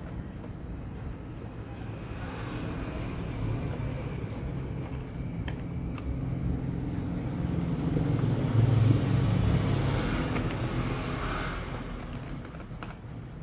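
A motor vehicle passing by, its low rumble swelling to a peak about nine seconds in and then fading away, with a few light clicks scattered through.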